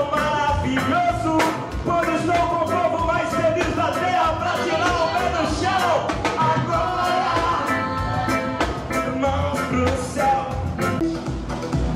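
A band playing: regular drum hits over bass, with a held, wavering melodic lead line on top.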